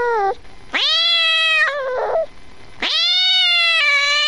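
Domestic cat meowing. The tail of one meow is followed by a meow about a second in, then a long, drawn-out meow starting about three seconds in.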